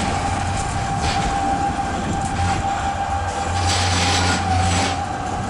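Tram running slowly round a curve, heard through an open window, with a steady whining tone and a low hum. A louder hissing rush comes about three and a half seconds in and lasts about a second.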